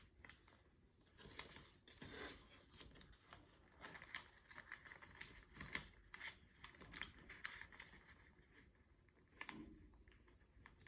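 Faint rustling and crinkling of a sheet of paper being folded and creased by hand, with irregular short scrapes as fingers press the folds flat.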